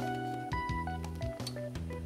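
Instrumental background music with held melody notes, a bass line and a steady beat.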